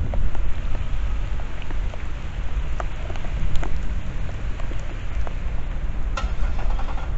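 Steady rain falling, with scattered sharp drop ticks over a strong, steady low rumble.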